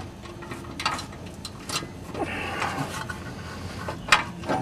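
Hand-fitted exhaust hardware handled on the exhaust flange: a few sharp metal clicks and light scrapes as a spring and bolt are worked into the joint between the catalytic converter and the exhaust pipe.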